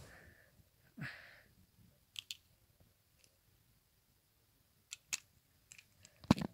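A few small sharp clicks and taps over near quiet: a short rustle about a second in, a pair of clicks about two seconds in, another pair a little after five seconds, and a louder knock just before the end.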